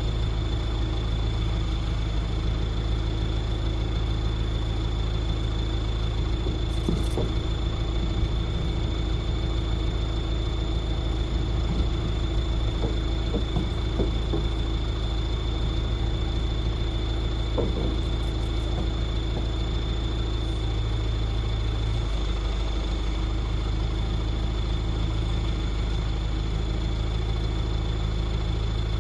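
Motor vehicle engine running steadily, a constant low rumble with a thin steady high whine over it and a few faint clicks.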